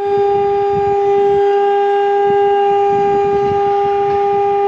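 Conch shell (shankha) blown in one long, steady, loud note.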